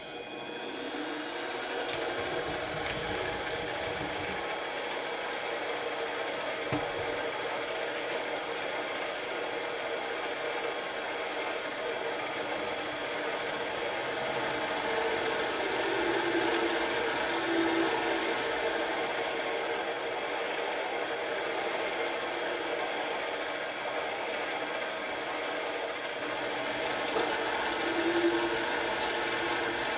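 Grizzly mini lathe running steadily, its motor and gear train humming as it spins a brass tube in the chuck, coming up to speed in the first second or two. A turning tool cuts the end of the brass tube, with a few louder passages in the second half.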